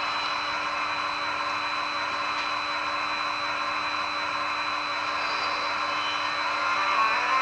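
Märklin model train running steadily: a constant whirring hum with a few fixed tones. Near the end a rising tone sets in, like the Taurus sound decoder's electric-locomotive converter sound as it speeds up.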